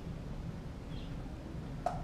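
A dog gnawing a frozen raw pig's foot, with one sharp crack of bone near the end, over a steady low rumble.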